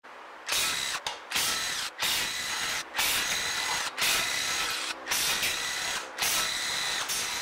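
Cordless impact wrench hammering in about seven short runs of roughly a second each, with brief pauses between them, as it undoes the cylinder-head bolts of a 5 hp flathead Briggs & Stratton engine.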